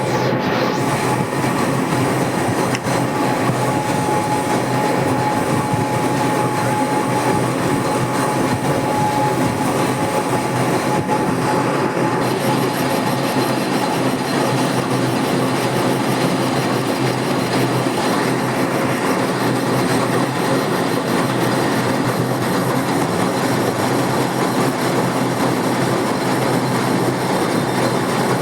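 Lathe running and turning a metal pipe clamp part: steady mechanical noise with a faint high whine that fades out about ten seconds in.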